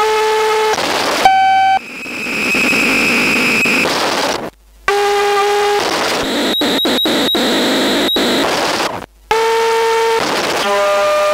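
DIY modular synthesizer playing harsh electronic tones: buzzy pitched drones that jump abruptly from one pitch to another, a stretch of hiss with a high whine over it, and a quick run of sharp clicks. The sound cuts out suddenly to silence for a moment twice.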